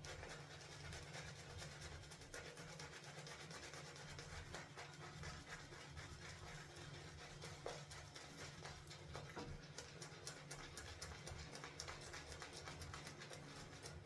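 Semogue 830 boar-bristle shaving brush swirling thick, dense shaving lather, a faint, continuous, fast wet scratching.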